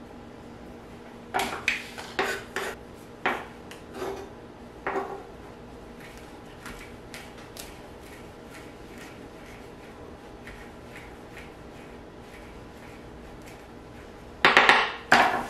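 Kitchen knife chopping fresh thyme leaves on a wooden cutting board: a handful of sharp knocks in the first few seconds, light quick taps through the middle, and a loud cluster of knocks near the end.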